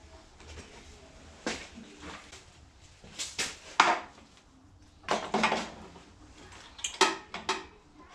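A screwdriver and other metal tools clinking and knocking against the carburettor of a Norton Commando engine, in four short clusters of sharp clicks, the loudest about four seconds in.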